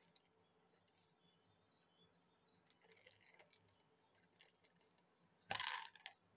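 Near silence with faint handling sounds of small craft parts: a ping pong ball, wire and a plastic case being handled on a cloth-covered table. There are a few soft clicks, then one louder brief handling noise about five and a half seconds in.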